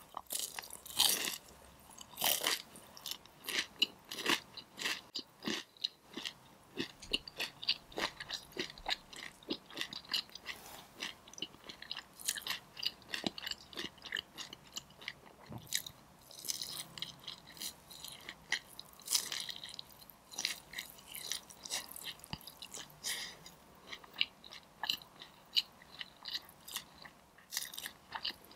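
Crisp crunching bites and chewing of sauce-glazed Korean fried chicken wings, a dense run of crackling crunches throughout.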